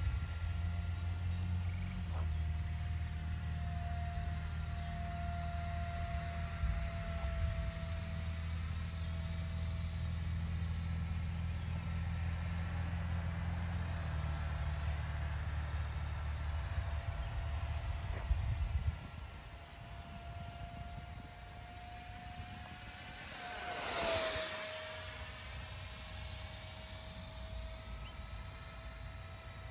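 The 50 mm electric ducted fan of a radio-controlled foam flying wing in flight, a steady whine whose pitch wavers as the throttle and distance change. About four-fifths of the way through it passes close and louder, the whine dropping in pitch as it goes by. A low rumble lies underneath until about two-thirds through.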